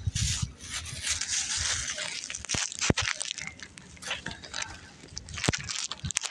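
Rustling and crunching close to the microphone, strongest in the first two seconds, with a few sharp clicks later on: handling noise.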